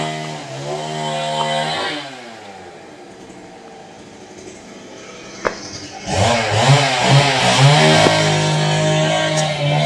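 Chainsaw engine running at speed, then dropping back for about four seconds. It is revved again with a few wavering blips before holding steady at high revs. A single sharp click comes about five and a half seconds in.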